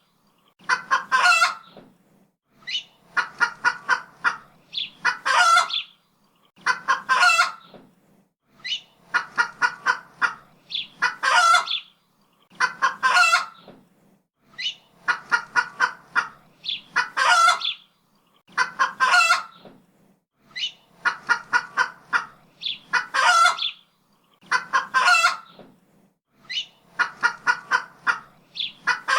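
Chicken clucking in a quick run of short clucks that ends in a longer, louder squawk, the same phrase repeating about every two seconds.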